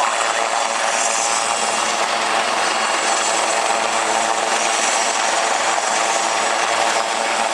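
Westland Lynx military helicopters hovering: steady turbine and rotor noise with a high whine.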